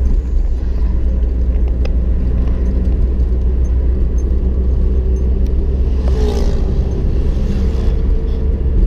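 Steady low rumble of a car's engine and tyres, heard from inside the cabin while driving along a road. About six seconds in there is a brief swell of hiss with a wavering tone.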